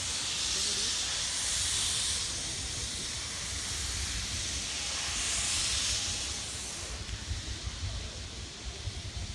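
Steam locomotive venting steam in a loud hiss that swells twice and dies away about six seconds in, over a low rumble.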